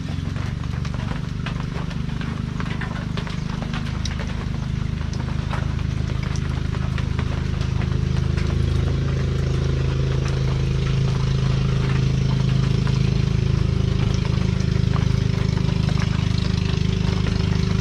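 Small engine running steadily, its pitch creeping up slightly about halfway through, over the hiss of a gas torch flame heating the end of a black plastic pipe to soften it.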